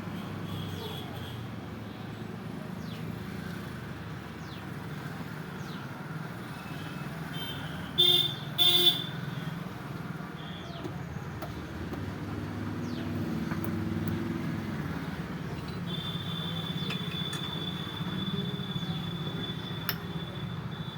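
Steady low mechanical hum throughout, with two short loud toots about eight seconds in and a steady high-pitched whine over the last five seconds.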